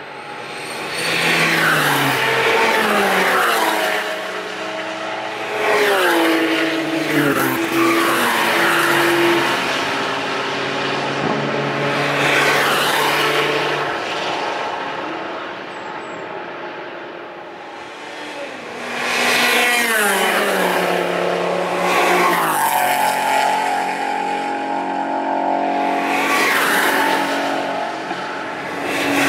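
Cars driven fast past one spot, one after another, about six passes. Each engine note swells, then drops in pitch and fades as the car goes by.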